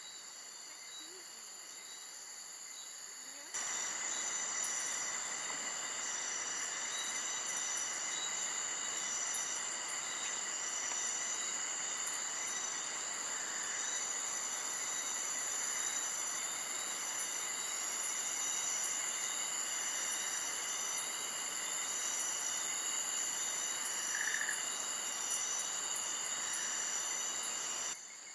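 Chorus of crickets and other insects with steady high trilling. A bit over three seconds in, a steady rushing hiss cuts in abruptly, louder than the insects, and cuts off just before the end.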